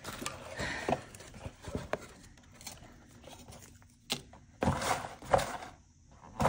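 Rustling and crinkling of packaging as a subscription box is opened and its plastic-wrapped contents are handled. There are a few light clicks, and a louder burst of rustling comes a little over four and a half seconds in.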